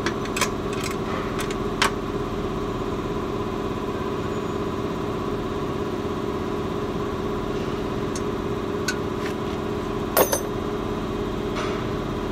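A steady machine hum with several fixed tones, like an engine or motor running, under a few sharp metal clinks from tools and suspension hardware being handled, the loudest pair about ten seconds in.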